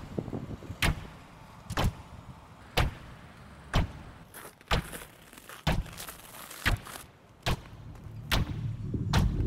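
Sharp thuds at an even pace of about one a second. Near the end a low rumbling drone swells up beneath them.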